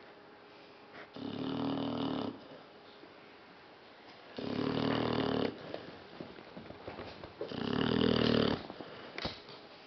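A sleeping dog snoring: three loud snores, each about a second long and spaced about three seconds apart.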